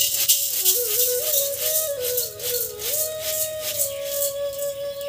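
Background flute music with a wandering melody, over dry rice grains rattling and sliding on a bamboo winnowing tray as it is shaken and tipped, in short irregular strokes a few times a second.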